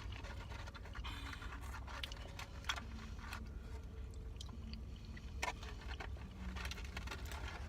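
A person chewing food close to the microphone, with scattered small clicks and crackles, over a steady low rumble.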